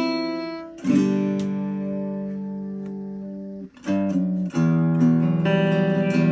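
Freshly set-up Baby Taylor three-quarter-size acoustic guitar being strummed: a chord about a second in rings out and slowly fades for about three seconds, then strummed chords start again and keep going.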